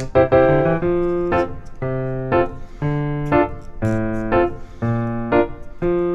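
Background music played on a keyboard: piano-like chords struck in a steady rhythm, about two a second.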